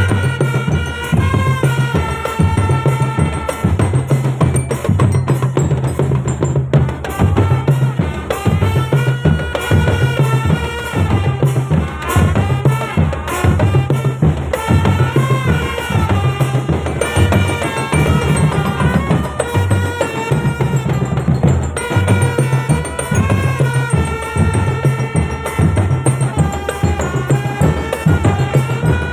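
Marching drum band playing: bass drums and snare drums keep a steady beat under a melody line.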